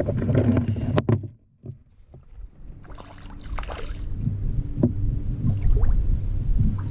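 Knocks, rubbing and handling noise aboard a fishing kayak as a hooked rainbow trout is brought in. Just over a second in, the sound drops almost to nothing for about a second, then builds back with more scattered knocks.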